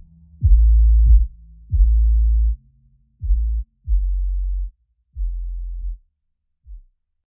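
Background electronic music: a run of deep bass notes, each dropping in pitch as it starts, with short gaps between them, getting shorter and quieter toward the end.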